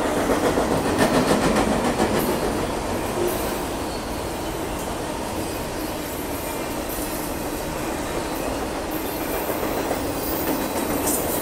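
Union Pacific freight train of enclosed autorack cars rolling past close by: a steady rumble of steel wheels on rail, a little louder in the first couple of seconds.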